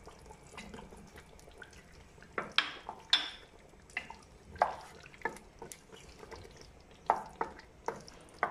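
Wooden spoon knocking and scraping against a metal cooking pot and a plate as tomato paste is scraped in and stirred through a simmering sauce. About ten sharp knocks, the loudest two and a half to three seconds in, with more near the end.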